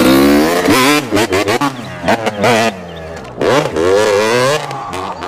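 Motocross dirt bike engine revving hard several times, its pitch climbing and dropping with each twist of the throttle.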